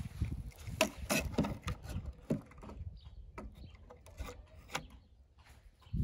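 Die-cast metal toy car being pushed into a lane of a plywood ramp toy: several light clicks and knocks of metal on wood with some rubbing, thinning out after about two and a half seconds.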